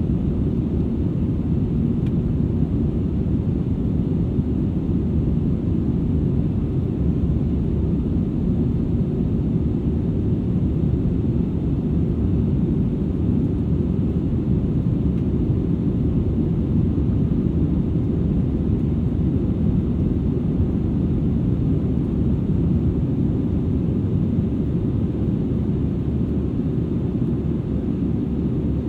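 Airbus A320-200ceo cabin in flight, heard from a rear seat: a steady low rumble of engine and airflow noise that holds an even level throughout.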